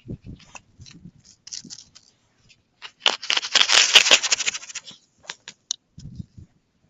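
Snow crunching as a ruler is pushed down into it to measure its depth. The crunching is densest and loudest for about two seconds from about three seconds in, with a few lighter crunches before and after.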